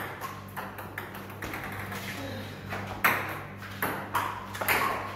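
Table tennis rally: the plastic ball clicks off the bats and bounces on the table, about two sharp hits a second, the loudest about three seconds in. A steady low hum runs underneath.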